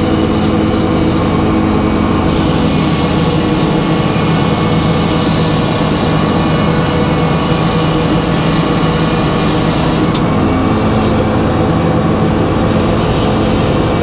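A sawmill running with a steady drone. From about two seconds in to about ten seconds in, its blade cuts through a log, adding a rushing noise over the drone.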